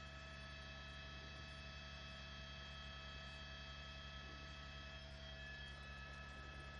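Faint steady electrical hum with several steady high tones above it.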